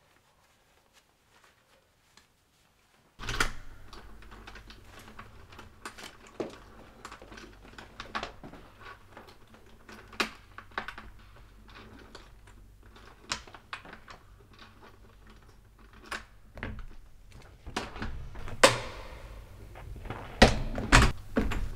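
Irregular clicks and knocks over a steady low hum that starts suddenly about three seconds in, with several louder knocks near the end.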